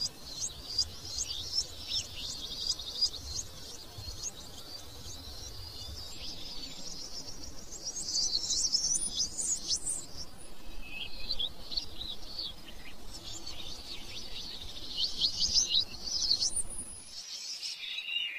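Birds chirping in a dense run of quick, high notes and short glides, over a faint low rumble. The rumble cuts off abruptly near the end, where a different, lower set of bird calls takes over.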